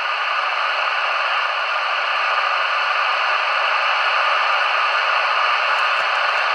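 Realistic TRC-424 CB radio's receiver hissing with steady static from its speaker, no station coming in; its audio stage, fixed after the set had no audio at all, is passing receiver noise again.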